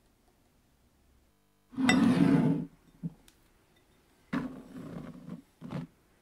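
Flour tipped from a glass bowl into a plastic mixing bowl, with dish clatter and the dull rush of flour landing. A loud burst comes about two seconds in, another longer one a couple of seconds later, then a short knock near the end.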